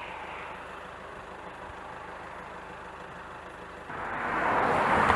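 Low steady roadside background, then a car approaching on the road: its tyre and engine noise swells from about four seconds in.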